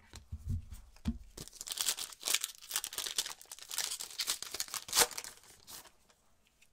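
A foil trading-card pack being torn open and crinkled by gloved hands, after a few low thumps of handling at the start. One sharp crack stands out about five seconds in.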